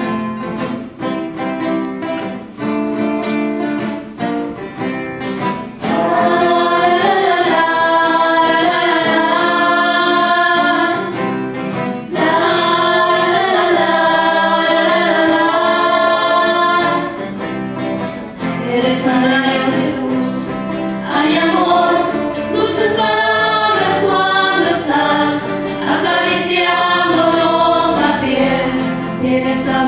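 Acoustic guitar strummed alone at first, joined about six seconds in by several girls singing together. Guitar and voices carry on as one song.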